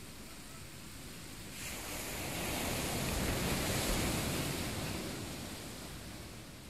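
Sea waves washing onto a beach: one surge of surf rises about a second and a half in, is loudest midway, then fades away.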